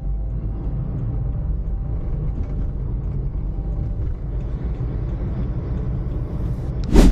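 Steady road and engine rumble inside a moving car's cabin. Near the end comes one brief, loud knock.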